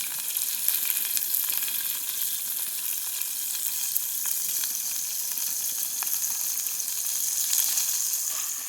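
Meat frying in oil in a pan, a steady sizzle with scattered small crackles and pops.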